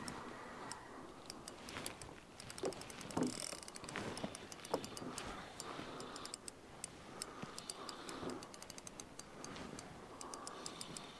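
Fishing reel clicking in quick runs of even ticks while a big fish is played on the line, with a few dull knocks between the runs.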